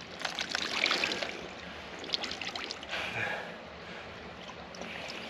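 Water trickling and dripping out of a wet mesh fish weigh sling as it hangs from a hand scale, with scattered small splashes.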